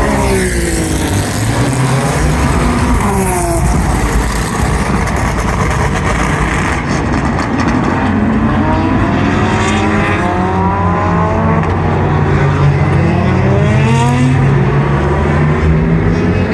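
GT2 race car engines running hard, their pitch sweeping up under acceleration and dropping away several times as they shift and pass, with a few sharp exhaust pops and crackles on the overrun.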